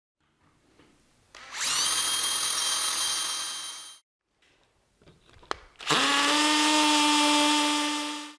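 Cordless drill boring into a soft old clamp-brick wall. It runs twice, for two to three seconds each time, and each run spins up quickly to a steady whine.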